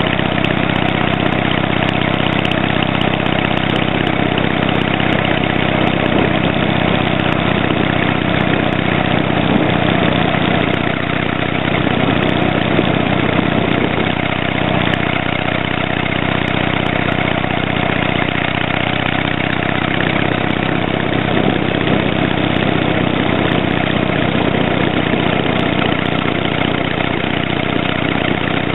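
Harley-Davidson Sportster 883 Hugger's V-twin exhaust, fitted with a tapered muffler and silencer insert, running steadily while the bike rides along at an even pace.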